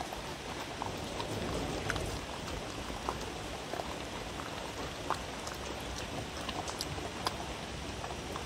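A dog eating from a wooden bowl: scattered crisp clicks and crunches of chewing and licking at irregular times, over a steady hiss.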